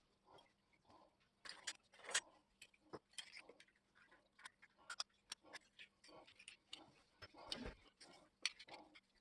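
Faint, irregular clicks and light taps of small parts being handled, a couple of the louder taps about two seconds in.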